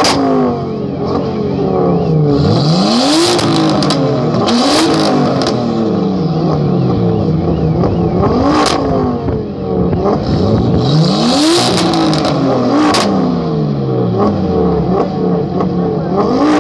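Two stationary cars, a Ford Focus RS with a turbocharged five-cylinder and a Nissan Skyline R32 with a straight-six, revved hard over and over, their engine notes rising and falling across each other. Sharp pops and cracks come several times as the revs drop.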